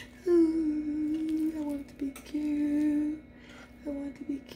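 A woman humming a tune in a few long held notes, two long ones and then shorter ones near the end.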